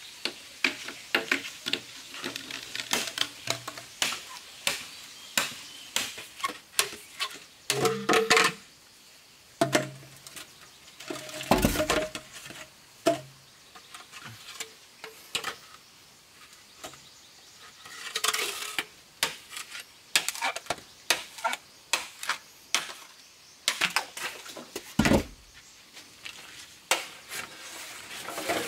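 Machete chopping and cutting bamboo: a run of sharp, irregular knocks and clicks, with a few heavier thumps.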